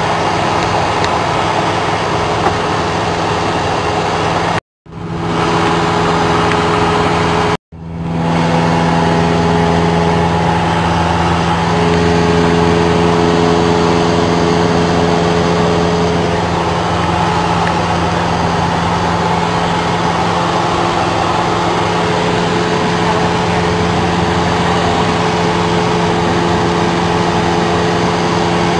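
Engine and propeller of a light high-wing airplane in cruise, heard inside the cabin as a loud, steady drone. The sound cuts out briefly twice, about five and eight seconds in, and fades back in each time.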